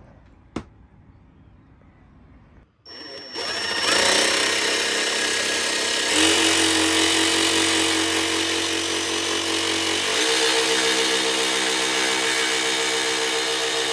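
Jigsaw cutting through plywood: it starts about three seconds in, comes up to speed, then runs steadily, its pitch shifting twice as the blade's load changes.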